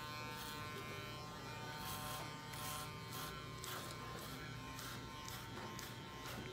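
Electric hair clippers buzzing steadily as they cut hair down close to the scalp for a fade.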